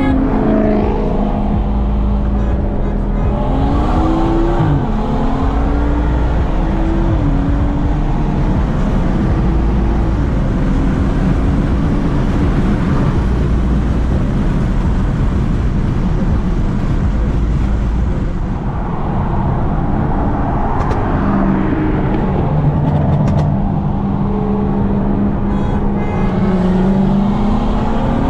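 Car engine under way, its pitch climbing and dropping back several times as it accelerates through gears, over a steady low road rumble.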